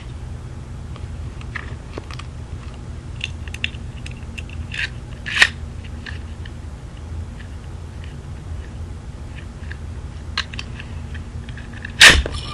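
Small plastic clicks and snaps as a Beyblade top is handled and readied, then one loud sharp clack near the end as it is launched onto carpet.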